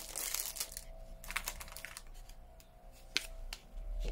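Clear plastic zip bag crinkling as small plastic trays are handled out of it, then a handful of separate light clicks and taps of hard plastic.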